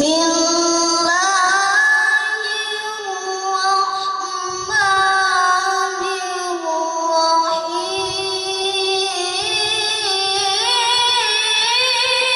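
A boy's voice chanting Quran recitation (tilawah) into a microphone over loudspeakers. He holds long, ornamented notes with wavering melismas, and the melody climbs higher near the end.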